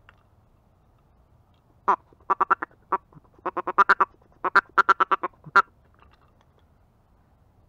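A run of about twenty loud duck quacks in several quick bursts, starting about two seconds in and ending about five and a half seconds in.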